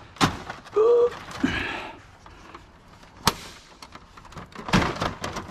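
A few sharp clicks and knocks from hard computer parts being handled during a PC teardown: one just after the start, a single crisp click about three seconds in, and a short cluster of knocks near the end. A brief "ooh" is voiced about a second in.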